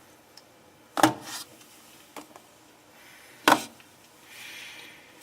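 Two sharp knocks about two and a half seconds apart, with a few lighter clicks between them and a soft rustle near the end.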